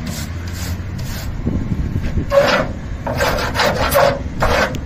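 Stiff push-broom bristles scraping sawdust across a truck's flatbed in several quick strokes, starting a little after two seconds in, over a steady low rumble.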